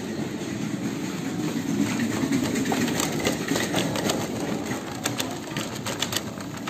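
Plastic shopping cart being pushed over a tiled floor: a steady rumble from the wheels with rattling clicks, which come thicker from about three seconds in.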